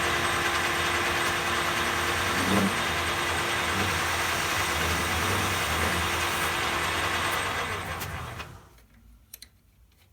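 Grazioli Fortuna metal lathe running steadily, then switched off and spinning down to a stop about eight and a half seconds in; a few faint clicks follow.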